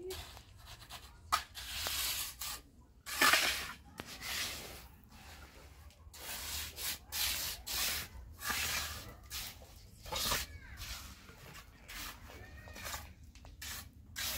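A series of irregular scraping strokes, each about half a second to a second long, like something rough being rubbed or scraped over a hard, gritty surface.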